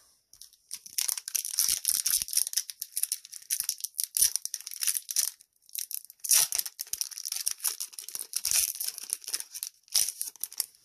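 Trading cards and a booster-pack wrapper being handled: a dense, crackly run of rustling and crinkling, with cards sliding and flicking against each other and a couple of brief pauses.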